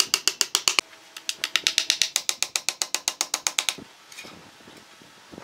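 Claw hammer driving nails into a pine board in rapid, even taps, about eight a second, each with a short ring. One run stops just under a second in; a longer run follows from about a second in until nearly four seconds, then only a few faint knocks of the boards being moved.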